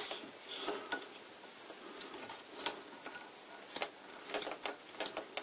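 Faint, irregular light clicks and ticks of metal handling as the old lathe's headstock spindle is turned by hand to feel its freshly adjusted tapered bronze bearings, with a quicker run of ticks near the end.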